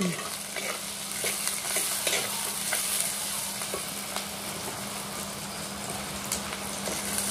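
Oil sizzling steadily in a clay pot as onion, green chilli, curry leaves, mustard and fennel seeds fry, with scattered crackles and the scrape of a wooden spatula stirring. This is the tempering stage, with the seeds left to fry well before the meat goes in.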